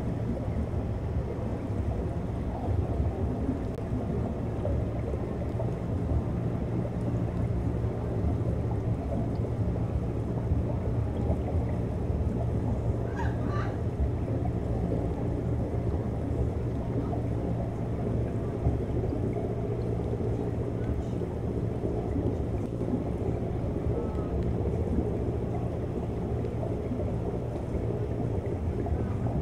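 Underwater ambience picked up by a submerged webcam's microphone: a steady low water rumble with a constant low hum underneath.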